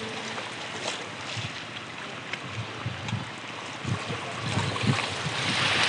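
Sea water lapping and washing, with wind gusting on the microphone in irregular low rumbles.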